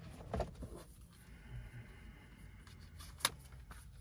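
Faint handling sounds of small objects, soft rubbing and rustling, with one sharp click about three seconds in.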